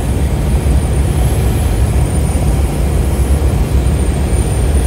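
Cabin noise of a light single-engine airplane on final approach, with the engine throttled back to idle and flaps at 30: a steady low rumble of engine, propeller and rushing air.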